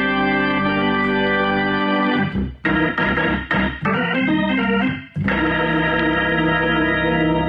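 Hammond organ playing held chords through a rotating (Leslie) speaker, the spinning speaker giving the tone its wavering wah-wah. A run of shorter chords comes about two and a half seconds in, then a long held chord from about five seconds in.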